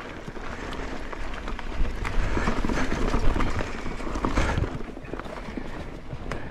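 Mountain bike rolling along a dirt and rock singletrack: tyres crunching over loose grit, with many small clicks and rattles from the bike. It gets louder for a couple of seconds in the middle, over a rockier stretch.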